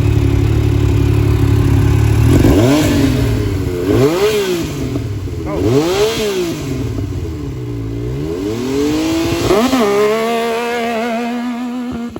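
Yamaha YXZ1000R side-by-side's three-cylinder engine running through a GYTR aftermarket exhaust: a steady low note at first, then revving hard about two seconds in, its pitch climbing and falling several times, before settling into a steadier, higher note near the end.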